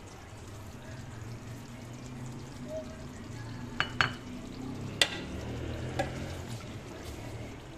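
Fish-head curry gravy simmering in a wok on the stove, with a low steady hum and a few sharp clicks, the loudest about four and five seconds in.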